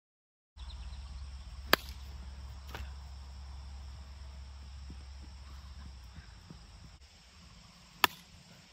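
Plastic wiffle ball bat striking the ball with a sharp crack near the end, and another sharp crack about two seconds in, over a steady high insect trill and a low rumble that fades out.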